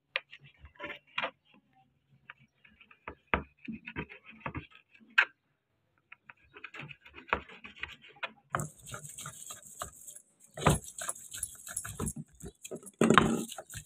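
Kitchen knife chopping buffalo tripe into pieces on a plastic cutting board: a run of irregular knocks and taps. A little past halfway this gives way to a hand grinding stone scraping and knocking over spices on a flat stone slab, with a steady hiss under the knocks.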